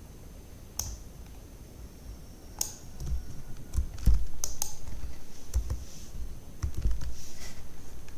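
Computer keyboard typing: a few single keystrokes at first, then a quicker run of key clicks through the second half.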